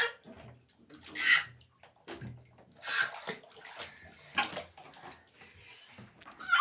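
Water splashing in a bathtub in several short bursts, a second or so apart.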